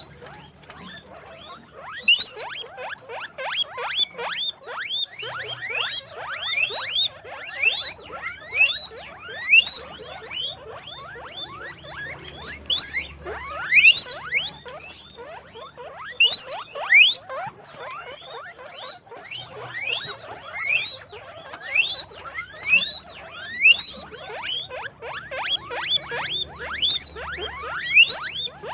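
Guinea pigs wheeking: a continuous run of short, high whistling squeaks, many overlapping, with louder calls every second or two. A faint steady high-pitched tone runs underneath.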